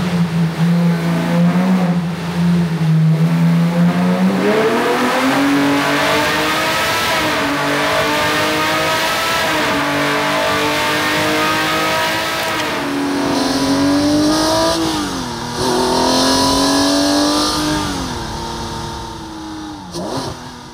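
Air-cooled engine with 3D-printed four-valve cylinder heads running at full load on an engine dyno through a simulated race lap. The revs rise and fall again and again like gear changes, with sharp drops and recoveries about 15 and 20 seconds in, and the sound fades out near the end.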